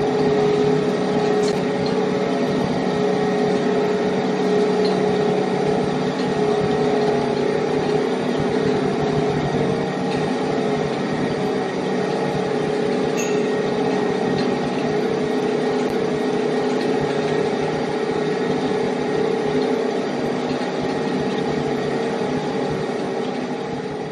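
Heavy machine running with a steady hum that holds several fixed tones and has no sharp impacts.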